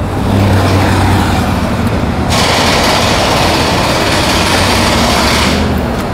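Steady engine hum in the background. A loud hiss starts suddenly about two seconds in and cuts off about three seconds later.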